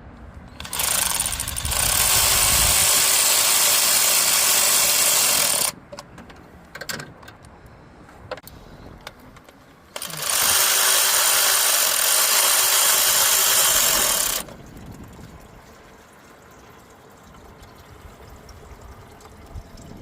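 A power tool runs in two bursts, the first about five seconds long and the second, starting about ten seconds in, about four and a half seconds. Each is a loud, even hiss with a steady tone in it, and each cuts off suddenly.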